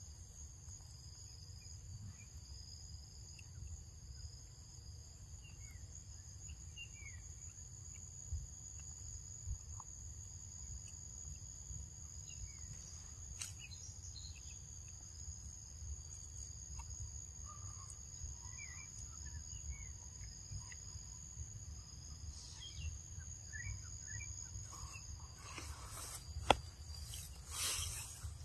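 Steady high-pitched drone of forest insects, two even tones that hold until near the end, over a low rumble, with scattered faint bird chirps. A few louder noises come near the end.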